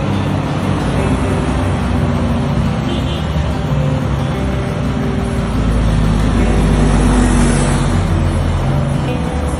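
Volvo FH semi-truck's diesel engine running as it drives up the street towards the listener, with road noise. The low engine sound grows louder from about halfway through as the truck draws near.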